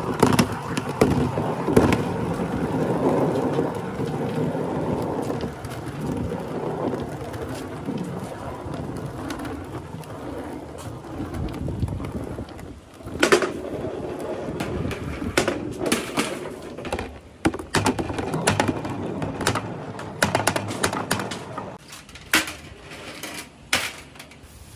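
Billiard balls rolling around a plastic bucket lid with a steady rumble, loudest in the first few seconds. Sharp clacks and knocks come through the second half, as the balls hit each other and the lid.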